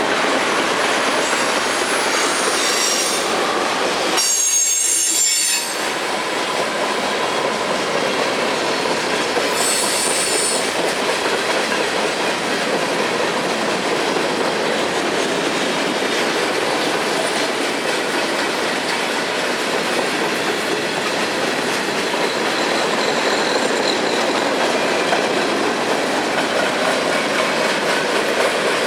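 Cars of a long manifest freight train rolling past steadily, with a continuous rumble of wheels on rail. Brief high-pitched wheel squeals ring out a few seconds in and again about ten seconds in.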